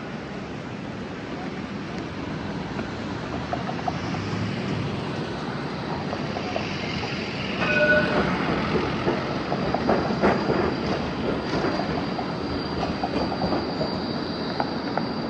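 Train running through a large railway station: a steady rumble that grows louder, then rapid clicking of the wheels over the rails and a thin, steady high squeal from the wheels in the last third. A short electronic beep sounds about halfway in.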